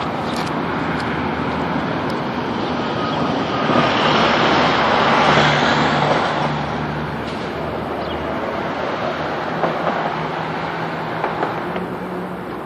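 Road traffic noise: a vehicle passing, its rushing sound swelling about four seconds in and fading after six.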